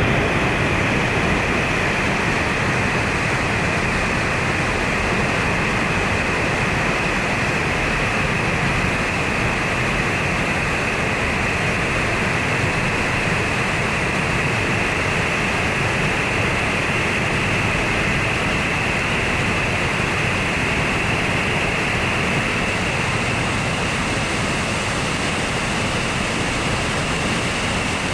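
Rushing water of the Jasień, a small urban river running high after rain: a steady, even rush.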